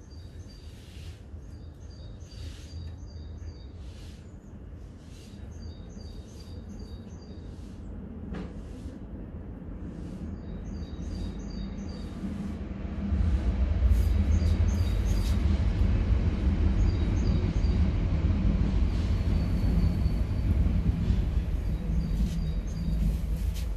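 Birds chirping in short quick runs of high notes, over a low rumble that swells about halfway through and then stays loud and steady.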